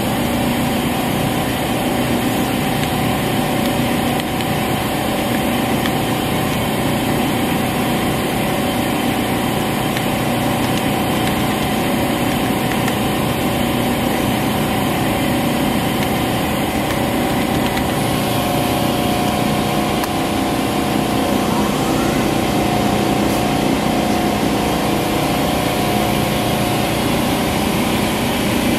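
Okuma 2SP-150HM twin-spindle CNC turning center running, a steady machine hum with several steady tones as its spindle turns a part in the chuck.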